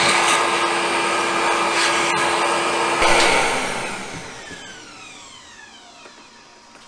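Hercules dual compound miter saw's motor running at full speed, then switched off about three seconds in and winding down, its whine falling in pitch as the blade coasts to a stop.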